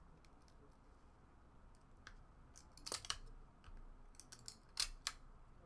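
Old, stuck-together 1996-97 Skybox Premium trading cards being pried apart and slid through the hand: a handful of short, crisp paper swishes and snaps, the loudest about three and five seconds in.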